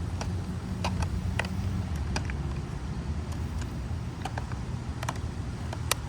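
Irregular sharp clicks and taps of hard plastic toy pieces being handled, over a steady low hum.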